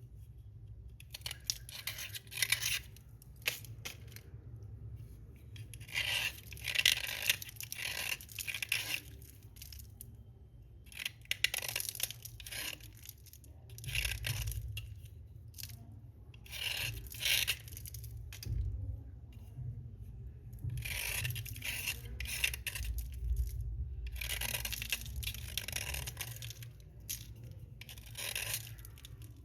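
Slate pencils crunching and grating in repeated bursts of a second or two each, with short pauses between, over a steady low hum.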